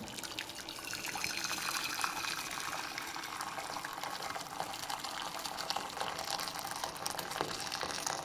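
Freshly boiled water from a glass electric kettle poured in a steady stream into a saucepan.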